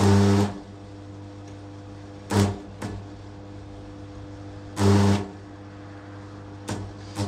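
Restored DeWalt electric hammer drill triggered in several short bursts of up to about half a second, the longest at the start and about five seconds in, while it is tested. A steady electrical hum runs underneath.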